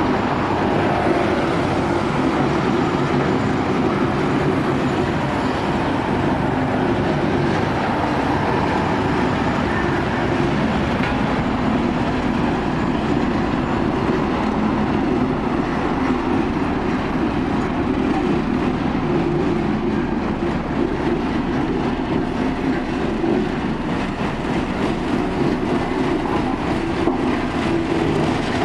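Steel-wheeled road roller running steadily, its diesel engine and heavy steel drums making a continuous rumbling clatter.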